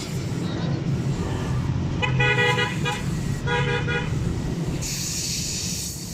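A vehicle horn honks twice, each blast under a second long, over a steady low engine rumble. A steady hiss starts near the end.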